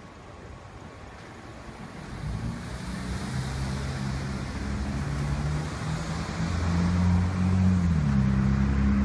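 Road traffic: a motor vehicle's engine draws near and grows steadily louder from about two seconds in, its low hum shifting in pitch as it goes.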